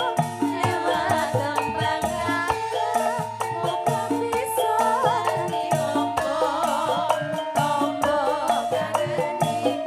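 Campursari band music played live, a steady beat under a bass line and a wavering melody, with a rattling shaker-like percussion.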